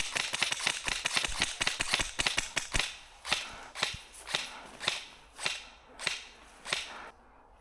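Footsteps crunching through dry undergrowth and leaf litter. There is a fast flurry of crackling steps at first, which settles into a steady walk of about two steps a second and stops near the end.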